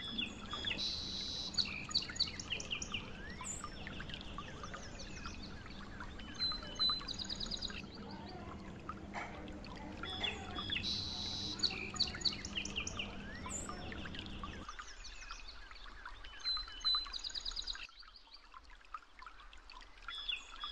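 Birds chirping and trilling in quick high calls. The same stretch of song seems to repeat about every ten seconds. Under it runs a faint low hum that stops about two-thirds of the way through.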